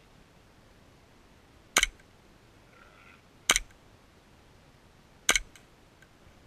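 Airsoft pistol firing three single shots, sharp cracks evenly spaced about a second and three-quarters apart.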